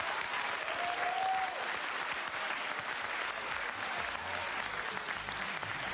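Studio audience applauding steadily, with a short shout from the crowd about a second in.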